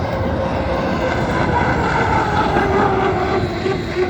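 Racing hydroplane's engine running at speed. It makes a high whine that falls steadily in pitch over the last couple of seconds as the boat goes by.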